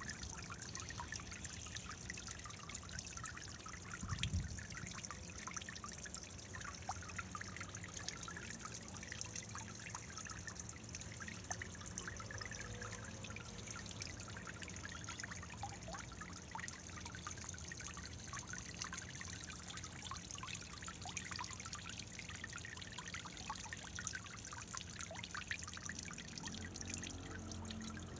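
Small floating solar fountain pump spraying jets of water that fall back onto the surface of a tub pond: a steady splashing trickle of many small drops. A low bump about four seconds in.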